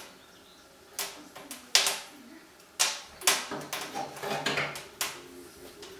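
Wood fire in a fireplace crackling, with several sharp, irregular pops about a second apart.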